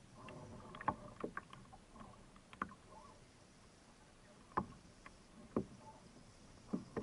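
Irregular sharp knocks and clatter on a fishing kayak and its spinning reel while a fish is being reeled in, over a faint background of wind and water. There is a quick cluster of knocks at first, then single ones about a second apart.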